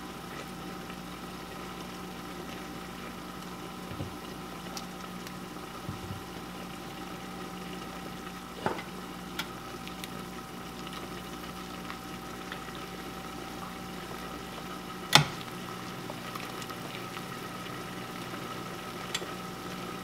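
Chicken broth boiling in a stainless steel pot, with dumplings dropped into it: a steady bubbling over a faint steady hum. A few light knocks and one sharp metal clink about fifteen seconds in come from a long-handled stirring spoon against the pot.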